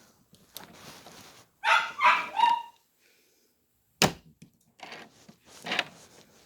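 A dog gives two or three short barks about two seconds in, then a single sharp clack about four seconds in, with a softer knock near the end.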